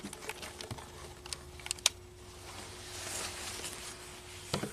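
Light clicks and rustling as a clamp meter's jaws are opened and closed around wires in the floor wiring harness and the meter is handled and set down on the floor padding, over a faint steady hum.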